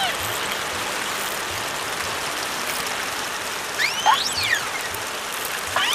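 Underwater hydrophone recording: a steady hiss of sea noise, with dolphin whistles, one rising-and-falling whistle about four seconds in and another starting just before the end.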